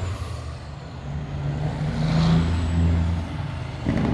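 A semi truck's diesel engine rumbles as the tractor drives slowly past, getting louder through the middle. A sudden, louder noise cuts in near the end.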